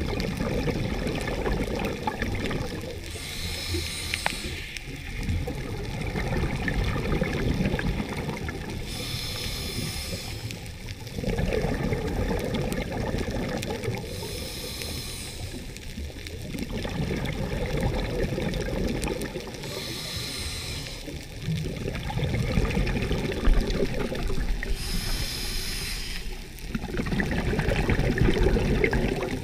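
Scuba diver breathing through a regulator underwater: a short hiss on each inhale and a rumble of exhaled bubbles, in a steady cycle of about one breath every five to six seconds.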